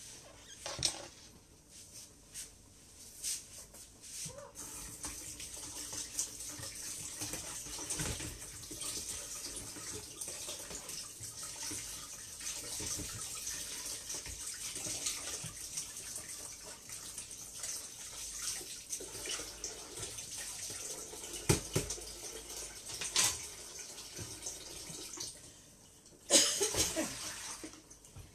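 Kitchen tap running into a sink as something is washed under it, starting a few seconds in, with a few sharp knocks and a louder splash near the end.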